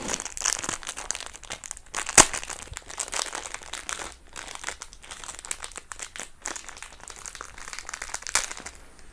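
A small fishing spoon lure's packet being opened by hand: crinkling and rustling throughout, with one sharp click about two seconds in.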